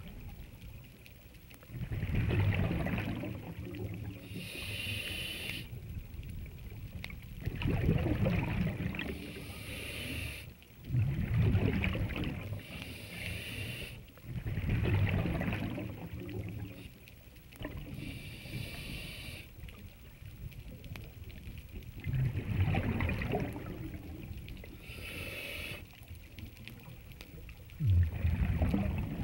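Scuba regulator breathing underwater: a short hissing inhale, then a loud bubbling exhale, repeating about every four to five seconds.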